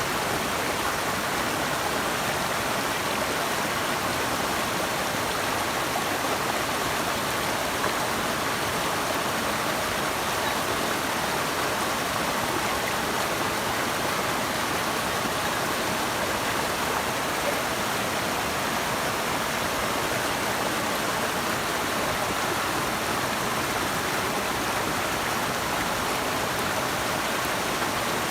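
Flowing water rushing steadily, a constant even wash of sound from a river or waterfall.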